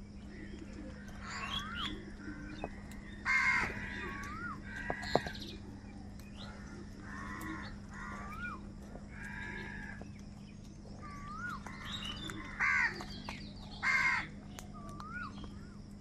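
A flock of house crows cawing while feeding, with three loud harsh caws about a third of the way in and twice near the end. Shorter calls and a few brief whistled notes from another bird come in between.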